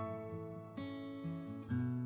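Acoustic guitar music, chords strummed with held, ringing notes, a fresh strum about three-quarters of the way through.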